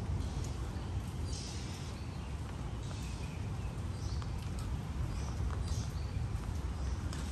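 Footsteps on wet ground, with birds chirping several times over a steady low rumble.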